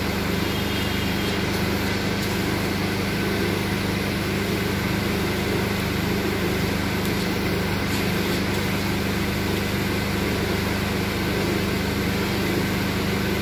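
Steady machine hum with an even whirring noise, unchanging throughout.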